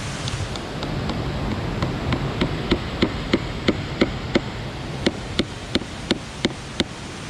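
A 50p coin being tapped into a wishing log with a rock: a run of quick, ringing knocks, about three a second, that starts lightly and gets sharper about two seconds in.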